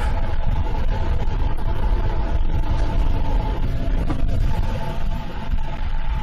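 Wind rumbling over the microphone while riding a 60 V electric moped-style e-bike at speed, with the steady whine of its electric motor under it.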